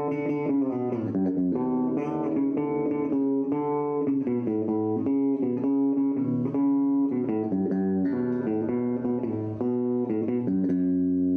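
Vault ST-style electric guitar played through a small Palco practice amplifier: a single-note lead line, notes changing a few times a second, ending on a long held note near the end.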